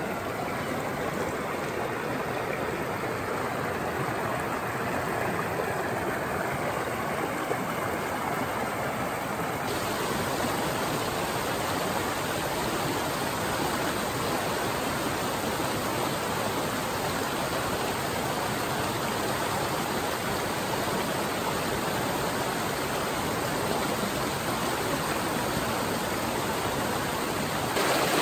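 Rushing water of a small mountain stream tumbling over a low waterfall and rocky cascades, running high with rain and snowmelt. It is a steady rushing hiss that turns brighter about ten seconds in and gets louder near the end.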